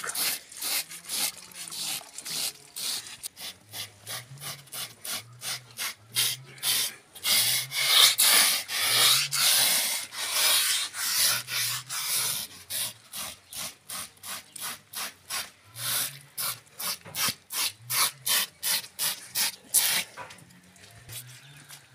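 Knife blades scraping the wet, singed skin of a slaughtered pig to clean off the burnt layer, in quick repeated rasping strokes about three a second that stop near the end.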